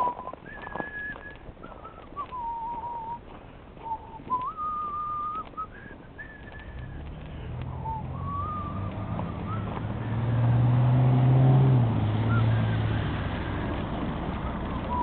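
A person whistling a wandering tune in clear single notes, held and gliding between pitches. About seven seconds in, a passing car's low rumble grows to be the loudest sound around ten to twelve seconds in, then fades.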